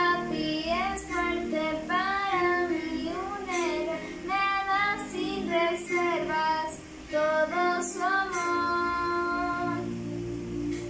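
A young girl singing a song solo over an instrumental backing track, with gliding phrases and some long held notes; her voice stops near the end while the accompaniment plays on.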